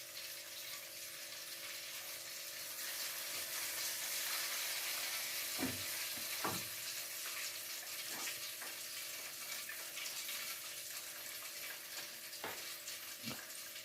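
Chicken pieces deep-frying in hot oil, a steady sizzle that swells in the middle, with a few sharp knocks of a utensil, two about halfway through and two near the end.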